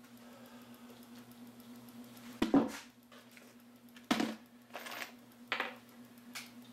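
Knocks and rattles as a plastic bin of screws and a cordless drill are handled and set down on a plywood panel. Two sharp knocks come about 2.5 s and 4 s in, followed by a few lighter clatters, over a steady low hum.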